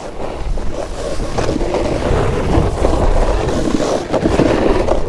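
Snowboard sliding and scraping down over wet, slushy snow, a steady rough hiss that swells and eases with the turns, with wind rumble on the microphone underneath.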